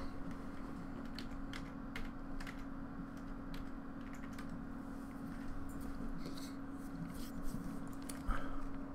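Irregular keystrokes on a computer keyboard, typing into a search box, over a steady low hum.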